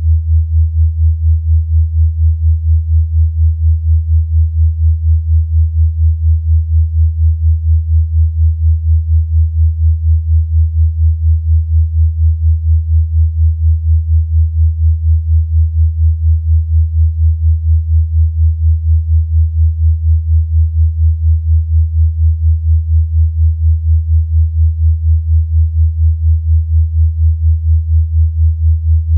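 Electronically generated low pure tone, a deep hum-like sine wave, held at one pitch and pulsing evenly in loudness a few times a second. It is played as a therapeutic 'frequency' for bruxism relief.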